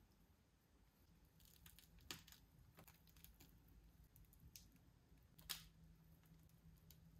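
Near silence with faint crinkling and squishing of a plastic piping bag being squeezed to pipe buttercream, and a few soft clicks, the sharpest about five and a half seconds in.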